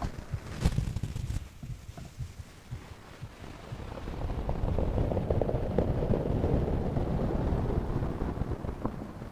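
Close-up body sounds of a sleeping person's chest: muffled low rumbling with soft, uneven low thumps, a sharp click about half a second in, and a rushing swell from about four seconds in that eases off near the end.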